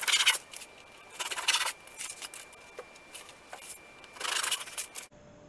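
Bread being cut to size: a few separate rasping cutting strokes, each about half a second long, irregularly spaced.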